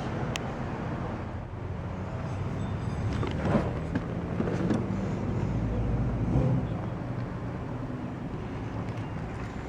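2001 Chevrolet Camaro Z28's 5.7-litre LS1 V8 idling steadily, with a couple of faint knocks.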